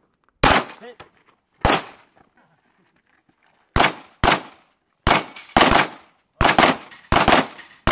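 Gunshots fired one at a time, about eight in all at uneven intervals, the later ones mostly in pairs about half a second apart, each with a short echoing tail.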